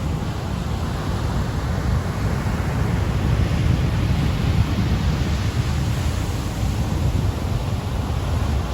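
Ocean surf breaking on a beach: a continuous wash of waves with a deep rumble, swelling a little in the middle.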